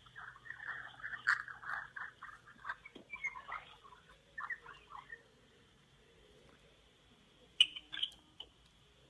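Faint, stifled laughter: a run of quick short bursts held back in the first few seconds, then two sharp clicks near the end.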